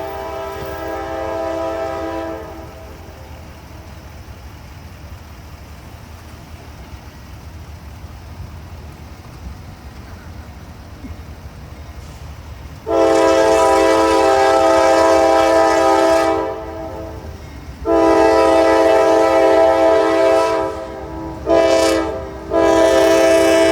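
Norfolk Southern freight locomotive air horn sounding a chord in blasts. A blast ends about two seconds in, then comes a long pause with a low rumble. Then come two long blasts, a short one and a long one that runs on: the long-long-short-long pattern of a grade-crossing warning.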